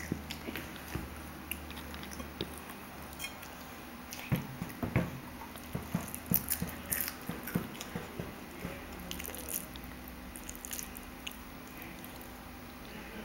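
Eating sounds: irregular biting, chewing and small crunches, with scattered soft clicks that come thickest about four to seven seconds in.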